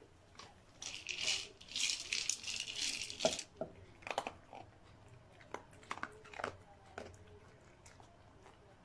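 Dry dog food rattling inside a plastic treat-dispensing ball as a dog noses and rolls it. There are dense rattling bursts in the first three seconds, then scattered clicks and knocks that thin out toward the end.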